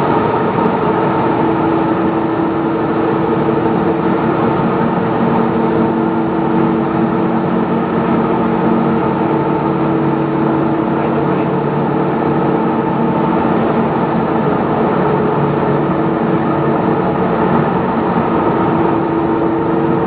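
Aluminium rod continuous casting and rolling line running: a loud, steady machine din with a few constant hum tones from its motors and drives.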